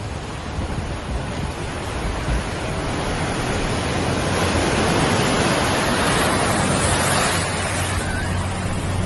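Storm wind rushing, a steady roar that builds gradually louder and then cuts off suddenly.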